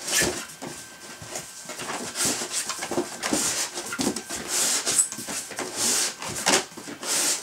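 Rummaging inside a cardboard box: irregular rustling and scraping of cardboard and packing material, with a few sharp clicks.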